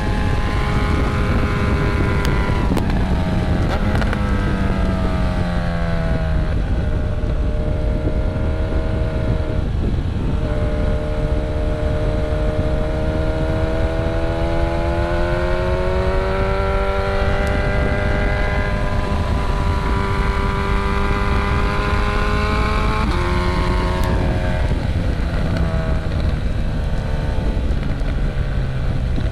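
Motorcycle engine heard from a bike-mounted microphone while riding, its pitch climbing under throttle and easing off, with sharp drops about two seconds in and again near the end. Heavy wind buffeting on the microphone runs underneath.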